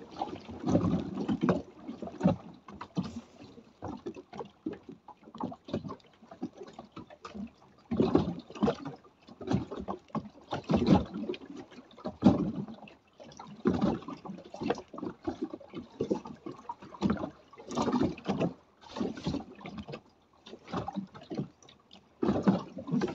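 Rough weather on a small boat anchored in a swell at sea: wind and rain buffeting in uneven surges, with water slapping and gurgling against the hull.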